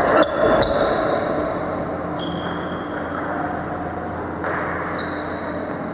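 Table tennis ball bouncing between points: about five separate short clicks, several with a brief high ringing ping, spaced unevenly over a few seconds.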